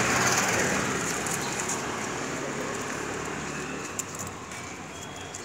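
A motor vehicle's engine running close by and fading away as it moves off, with a few light clicks near the end.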